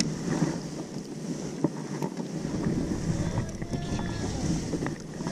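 Wind buffeting the microphone of a camera mounted on a sea kayak, over the wash of the sea. A deeper wind rumble sets in about two seconds in.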